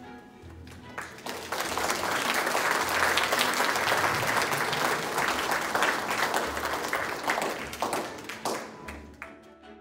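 Audience applauding: clapping builds about a second in, holds strongly, then fades away near the end.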